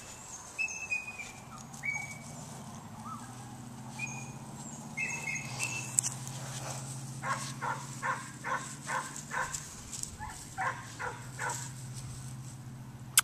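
Outdoor ambience: short high bird chirps in the first half over a steady low hum. In the second half, a quick run of about a dozen short rhythmic sounds comes about two a second.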